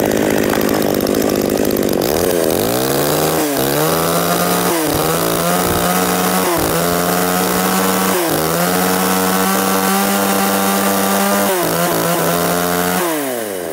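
Tanaka 33cc top-handle two-stroke chainsaw running at high revs, its throttle let off and squeezed again several times so that the engine note dips and climbs back each time. Near the end it drops back toward idle.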